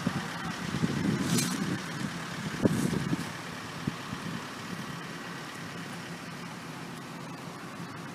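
An engine running steadily at idle, a constant low drone, with some brief rustling noises in the first three seconds.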